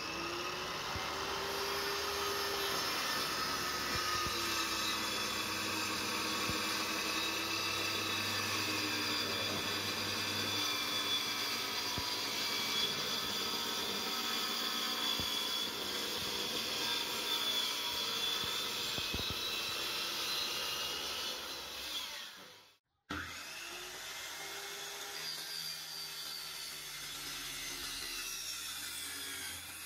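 Stanley 1510-watt circular saw running under load, its blade cutting through a board along a clamped straightedge guide, with a steady motor whine over the cutting noise. It cuts out briefly about three quarters of the way through, then runs on somewhat quieter.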